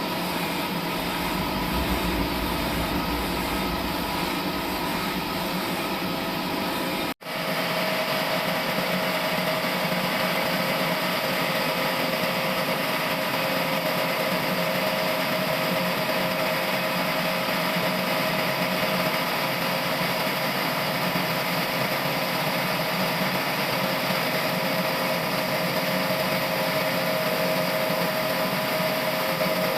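Sawmill machinery running steadily, a mechanical hum with a steady whine on top. The sound cuts out for an instant about seven seconds in, then carries on steady with less low rumble.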